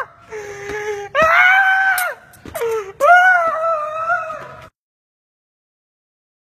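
A man's voice wailing and screaming in high-pitched, drawn-out cries, two long ones with shorter yelps between, cutting off abruptly to silence about five seconds in.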